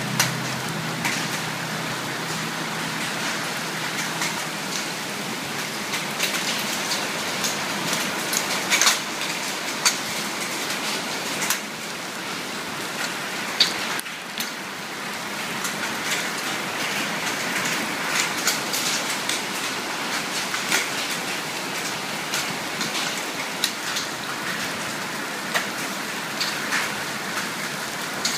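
Hail and rain beating on a sheet-metal roof: a steady hiss of rain with many scattered, sharp pings and clicks as hailstones strike the metal.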